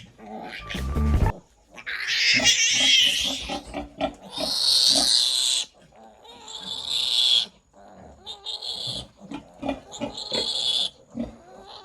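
Two-day-old piglet squealing while being held for tail docking and an iron injection: about five shrill squeals, each a second or so long, with short gaps between. There is a low thud about a second in.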